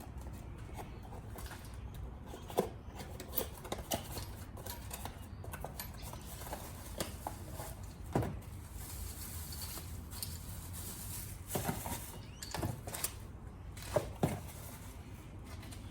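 Scattered light clicks and knocks of hands and tools on engine parts as a replacement ignition coil is fitted to the engine, with a steady low hum beneath. The sharpest clicks come near the end.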